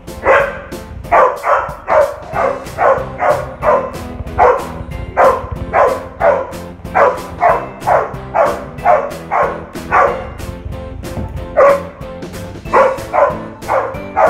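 A dog barking rapidly and repeatedly, about two barks a second in quick runs with a few short pauses, over background music.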